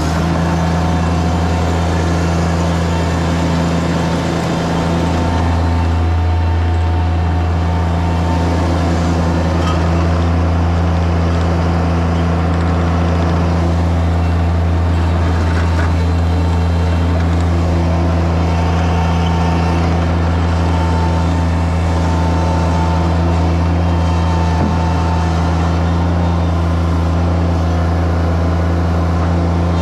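Mini skid steer's engine running loud and steady close by, its low hum holding an even speed with a brief dip about four seconds in.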